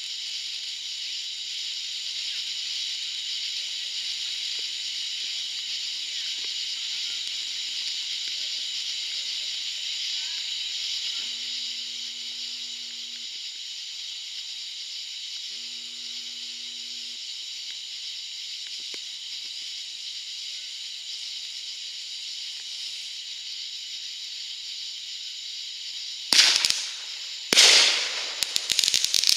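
Ground fountain firework spraying sparks with a steady high hiss. Near the end two loud firework bangs go off, followed by rapid crackling.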